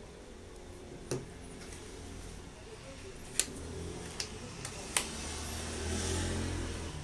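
A few sharp clicks from small plastic connectors and the radio transmitter being handled, over a low steady hum that swells slightly near the end.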